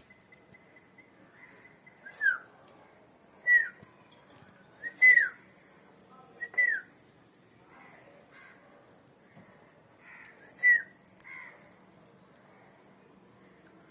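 Sun conure giving short calls that fall in pitch, about five loud ones a second or more apart, with a few fainter calls between them.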